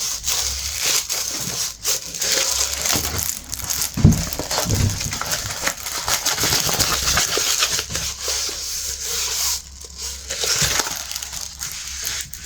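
Diamond painting canvas and its plastic cover film being handled and unrolled, crinkling and crackling, with a dull thump about four seconds in.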